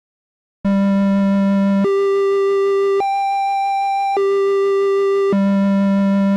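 Casio VL-1 (VL-Tone) playing its 'Fantasy' preset, a square-wave-based monophonic tone. Five held notes of about a second each step up an octave, up another octave, then back down to the starting low note, running straight into one another.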